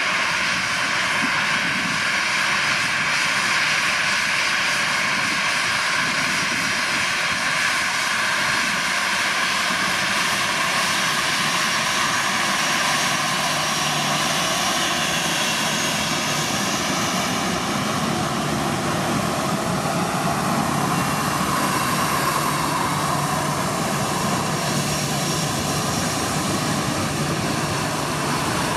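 A Boeing 737's CFM56 turbofan engines running steadily at taxi thrust close by, a continuous whine over a rushing jet noise. The whine's tones shift, and a deeper rumble comes in, a little over halfway through as the aircraft swings past.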